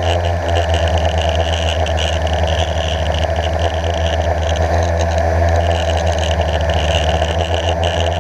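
Blade 350 QX quadcopter's four brushless motors and propellers running steadily in flight, a constant buzzing hum picked up by the camera on board.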